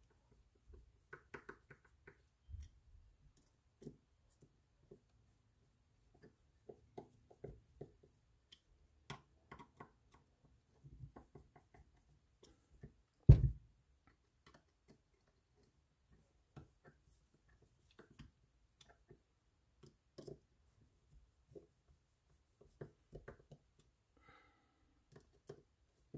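Scattered small clicks and light knocks of a screwdriver working the frame screws of a Penn Senator II reel, each turned a little at a time until snug, with handling of the reel's metal frame. One much louder knock comes about halfway through.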